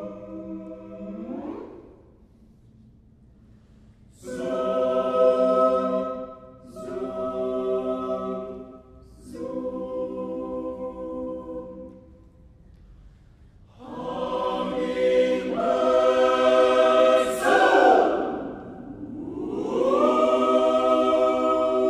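Mixed choir singing a cappella in sustained chords. A chord slides upward and fades out about two seconds in. After a pause come three separate held chords. A fuller chord then swoops down in pitch and back up into a held chord near the end.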